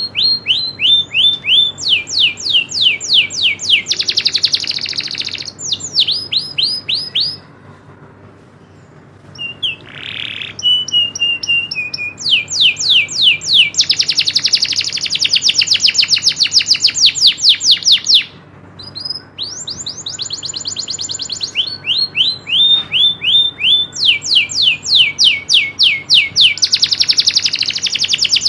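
Domestic canary singing in long, rapid rolling trills: fast runs of repeated notes, each sweeping down in pitch, in several phrases. There are short pauses about 7 seconds in and again about 18 seconds in.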